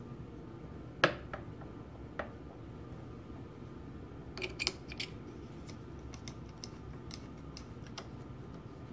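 Small metal-on-metal clicks and taps as the steel parts of a Linotype knife block are seated and screwed down by hand. A sharp click comes about a second in, a few lighter knocks follow, and a run of faint ticks fills the second half, over a steady low hum.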